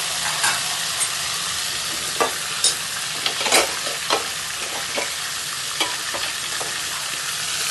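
Mutton, spices and frozen tomatoes sizzling in hot oil in a metal pot as they are stir-fried. A steel spoon stirring the pot makes scattered sharp metal clinks.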